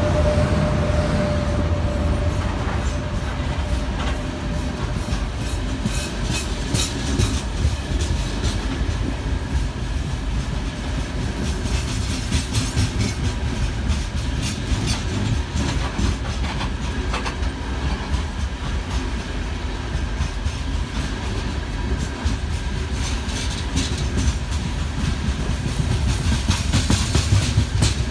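Freight train's gondola cars rolling past at speed: a steady low rumble of wheels on rail, broken by repeated clusters of clickety-clack as the wheelsets cross rail joints. A steady whine from the just-passed 3ES5K electric locomotive fades out in the first couple of seconds.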